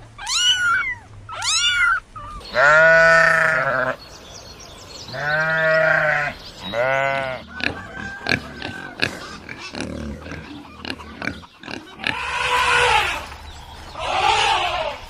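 Animal calls: short high chirping calls at the start, then three long pitched calls like bleats, a patch of clicks and knocks, and two rougher calls near the end.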